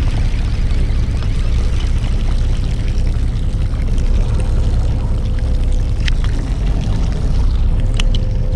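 A fishing boat's engine running steadily with water washing around the hull, a thin steady whine joining partway through and a couple of light clicks near the end.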